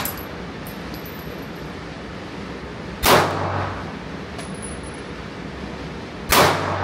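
Two gunshots at an indoor range, about three seconds apart, each sharp report followed by a short echo off the range walls.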